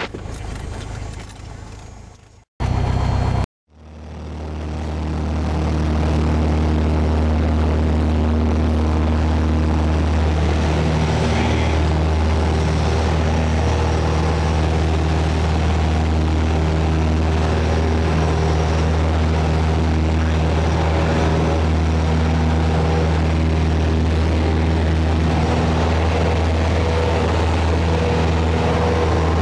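Light single-engine propeller airplane's piston engine running at takeoff power, a steady drone heard inside the cockpit. After a brief break about three seconds in, it builds up over a couple of seconds and then holds steady through the takeoff roll and climb.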